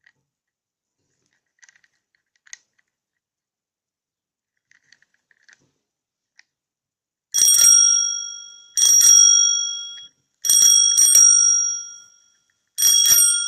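Bicycle bell with an 'I Love My Bike' printed dome, rung four times in the second half, each ring a quick rattle of strikes that rings on and fades; the third ring is struck twice. Before the rings come a few faint clicks.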